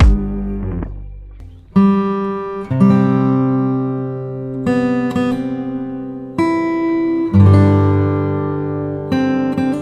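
Background music: acoustic guitar chords strummed one at a time and left to ring.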